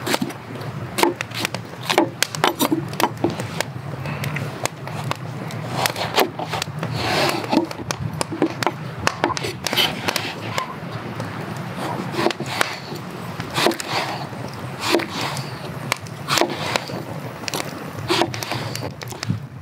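Kitchen knife cutting an eggplant on a wooden cutting board: sharp, irregular knocks of the blade against the board, about one or two a second, with the slicing of the skin and flesh between them.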